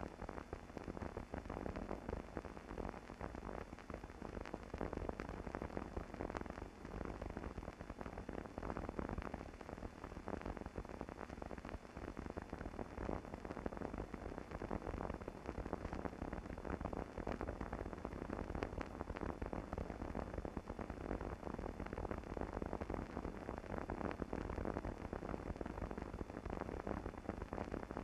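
Surface noise of an old film soundtrack: a steady hiss thick with irregular crackles and clicks, with no distinct event standing out.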